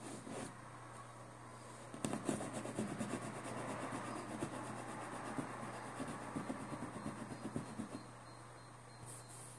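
A thin saw blade held in the hand sawing through melamine-faced chipboard in quick back-and-forth strokes. The sawing starts about two seconds in and stops near the end.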